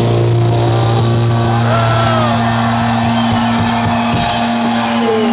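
Live rock band's final held low note ringing out after the drums stop, as the song ends, with whistles and cheers from the crowd over it.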